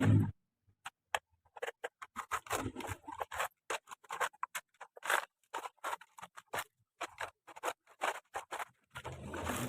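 Toy excavator and dump truck being worked in sand: irregular scrapes, clicks and small rattles, with a low thump at the start.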